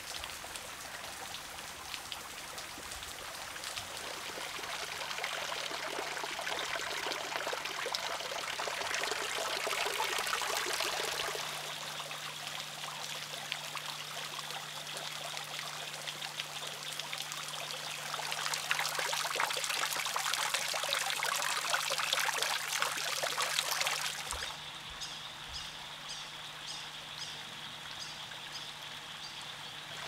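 Water trickling and dripping as it seeps over a fern-covered rock face and drips into a creek pool, a steady splashing that changes character at a few cuts. In the last few seconds, faint high ticks come about twice a second over the water.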